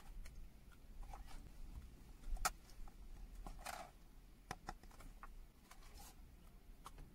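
Faint handling sounds of a cardboard perfume box and a glass perfume bottle: scattered light clicks and rustles, the sharpest click about two and a half seconds in and a short soft rustle just before four seconds.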